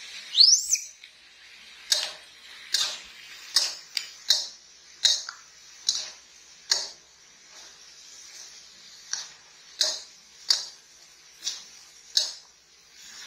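Metal spatula scraping and knocking against a wok while green beans are stir-fried, about one stroke every three quarters of a second, with a short pause about halfway. About half a second in, a short high squeak rises steeply in pitch.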